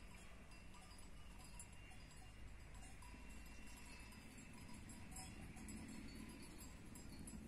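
Faint, scattered tinkling of sheep bells from a flock of sheep grazing, a few short ringing notes at a time.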